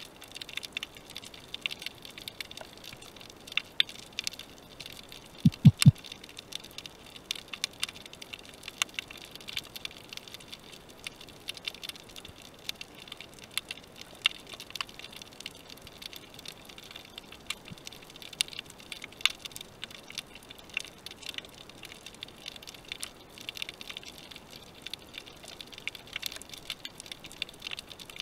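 Underwater ambience over a shallow rocky seabed: a steady crackle of many tiny clicks. Two or three short low thumps come close together about six seconds in.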